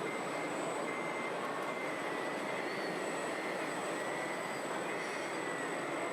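Electric drive of RC model construction vehicles running: a steady whir with a faint whine that wavers in pitch.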